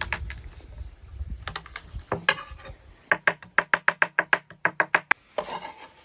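Chef's knife chopping garlic on a wooden cutting board. A few separate cuts come first, then a fast, even run of mincing strokes, about eight a second for two seconds. Near the end there is a short scrape of the blade across the board.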